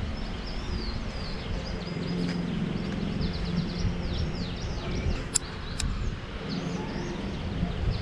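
Many small birds chirping, a busy run of quick high notes sliding down in pitch, over a steady low outdoor rumble. Two sharp clicks come close together a little after five seconds in.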